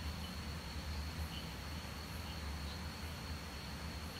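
Steady background noise: a continuous low hum with a thin, steady high-pitched whine over it.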